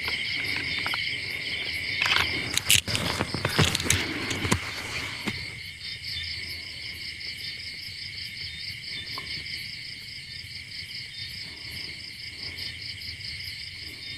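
Night chorus of crickets: a steady, high, pulsing chirring throughout. A few sharp knocks and rustles of handling come in the first five seconds.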